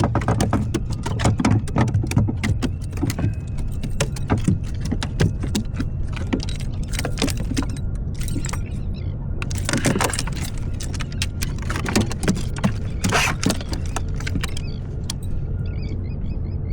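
Metallic rattling and clicking of a wire A-rig and its hooks being handled while fish are unhooked, over the steady low hum of an idling boat motor.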